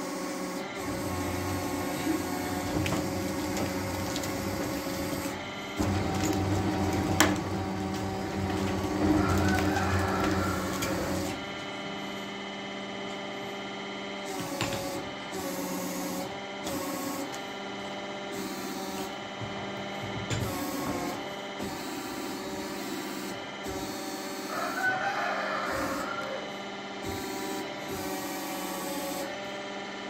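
Carpathian SMSA 110 sawmill machinery running, a steady mix of motor hum and whine. It is heavier and louder for about the first ten seconds, with a sharp click about seven seconds in, then settles to a steadier, quieter run.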